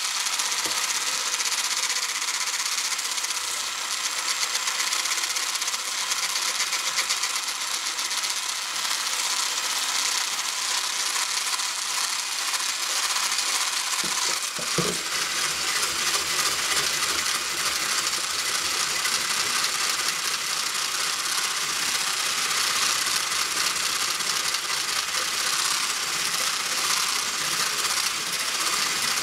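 Electric kitchen mixer running steadily, beating egg yolks with sugar and vanilla, with a brief knock about halfway through.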